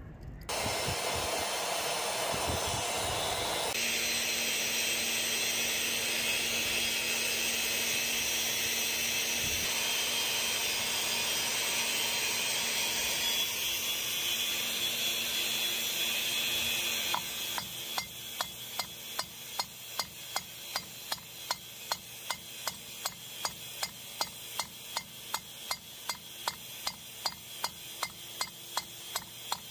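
A steady rushing noise for about the first half, then a hammer striking a steel nail on the anvil face of a bench vise, evenly spaced blows about three a second.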